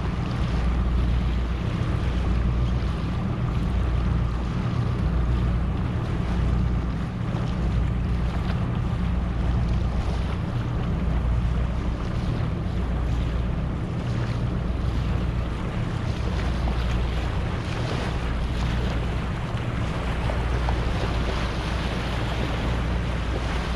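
Wind gusting across the microphone with a steady low rumble, over small waves washing onto a sandy shore.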